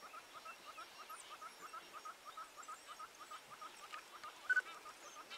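African wild dogs twittering while feeding at a kill: a rapid, even run of short high chirps, with a brief louder squeal about four and a half seconds in.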